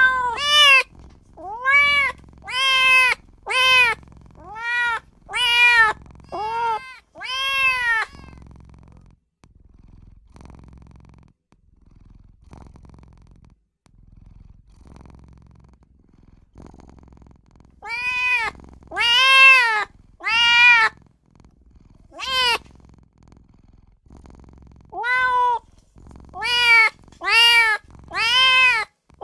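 Kitten meowing in repeated short, high calls, each rising and then falling in pitch, about one a second. The calls stop for about ten seconds in the middle, then resume in two more runs.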